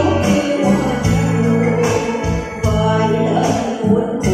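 A woman singing a slow song into a microphone, amplified over a PA, with live electronic keyboard accompaniment playing held bass notes.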